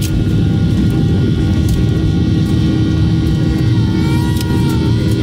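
Airliner's jet engines at takeoff thrust, with the wheels rumbling on the runway, heard from inside the cabin during the takeoff roll. Loud and steady.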